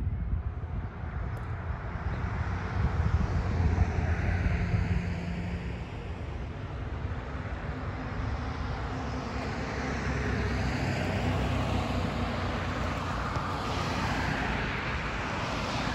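Steady vehicle noise: a low rumble with a hiss, loudest about three to five seconds in.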